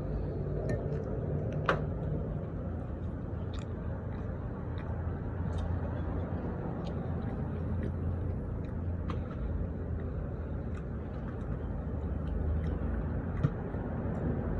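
Restaurant dining-room background: a steady low hum with faint murmur, and scattered light clicks, the clearest about two seconds in.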